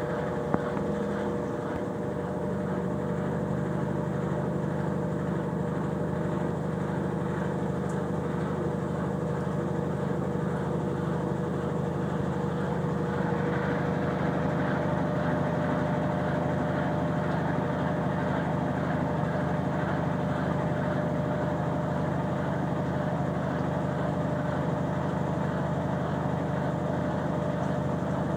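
Consul Facilite 9 kg washing machine running steadily, with a constant motor hum and a steady whine, and a brief click just after the start.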